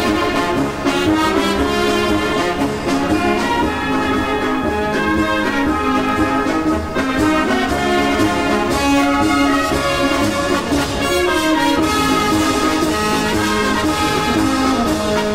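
Brass band music: a German Blaskapelle playing a Volksmusik piece, the full band sounding at a steady level.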